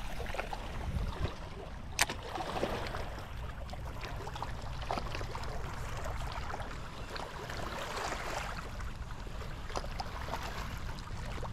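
Small waves lapping and trickling among the shoreline rocks, over a steady low rumble, with one sharp click about two seconds in.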